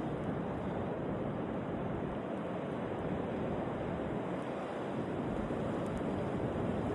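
Blizzard wind blowing steadily, a constant rushing noise with wind buffeting the microphone.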